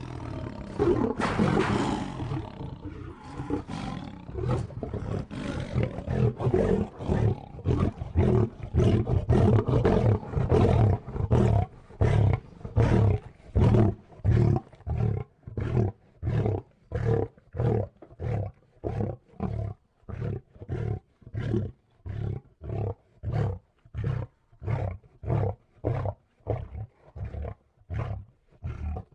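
Lion roaring sound effect: a longer roar in the first couple of seconds, then a long, even run of short roaring grunts about two a second, growing shorter and fainter toward the end.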